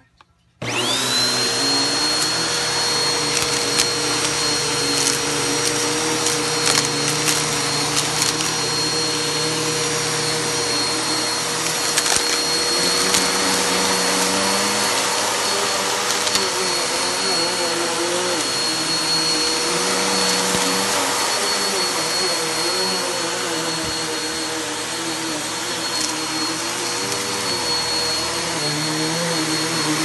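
Bissell PowerForce upright vacuum switched on about half a second in. Its motor spins up to a steady high whine and runs as it is pushed over a shag rug, with scattered clicks and crackles as crunchy debris is sucked up.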